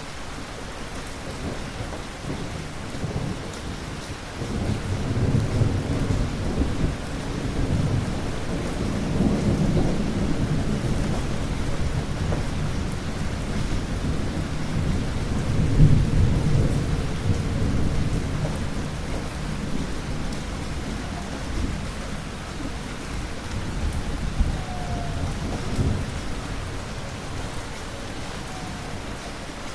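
Rolling thunder over steady rain. The deep rumble builds about four seconds in, is loudest around the middle, and dies away near the end while the rain keeps falling.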